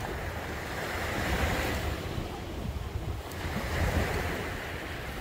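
Sea waves washing onto a sandy beach, swelling and fading twice, with wind rumbling on the microphone.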